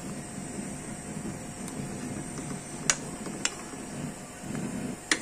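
Spatula stirring thick chicken curry in a pan, with sharp clicks of the spatula against the pan about three seconds in and twice in quick succession near the end. A faint steady hum runs underneath.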